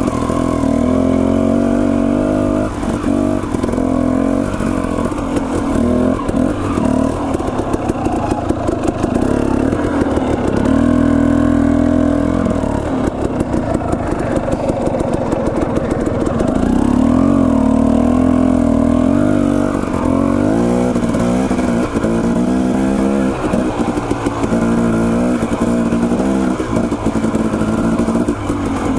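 Dirt bike's single-cylinder engine being ridden along a rough trail, its pitch rising and falling again and again as the throttle is opened and rolled off.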